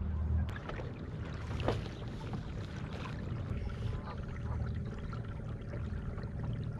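Water lapping against a kayak hull over a steady low rumble, with a few light knocks.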